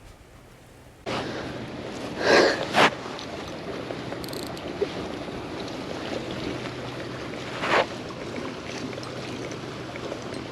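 Rushing water starting abruptly about a second in, with three louder splashes: two close together a couple of seconds in and one near eight seconds, as a big hooked fish is worked toward the surface.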